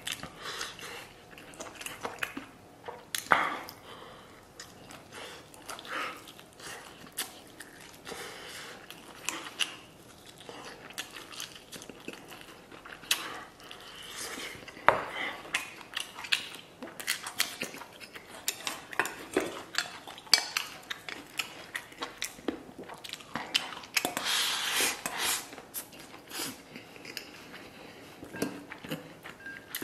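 Close-miked eating: biting and chewing meat off a braised pork rib, with frequent small clicks and clinks of chopsticks and dishes against a stainless steel bowl.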